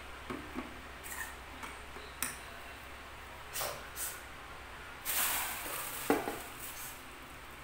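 A fork and spoon clink against a small metal saucepan a few times, with a sharper clink about two seconds in and another near the end. A longer hiss-like noise comes about five seconds in.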